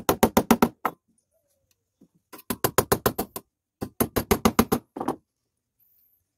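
Claw hammer nailing a square metal electrical box (chalupa) down to a wooden formwork board. There are three quick runs of light, rapid blows, about seven a second, each run lasting about a second.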